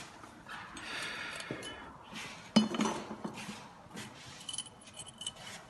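Small metal pieces clinking and knocking against a hard surface, with one sharp knock about two and a half seconds in and light, ringing clinks near the end.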